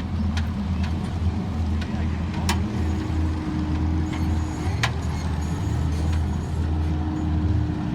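A motor vehicle's engine running with a steady low rumble while driving off-road, with a steady hum coming in partway through and two sharp clicks or knocks.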